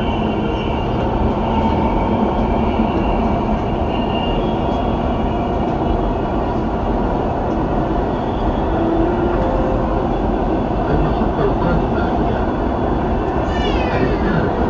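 Dubai Metro train running between stations, a steady rumble of wheels and motors heard from inside the carriage. Near the end there is a brief falling squeal.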